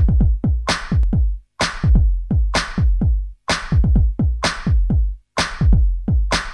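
Background electronic music with a steady drum-machine beat and deep bass.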